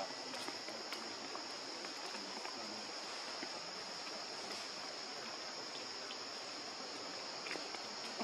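Steady, high-pitched drone of an insect chorus over a faint even hiss, with an occasional faint tick.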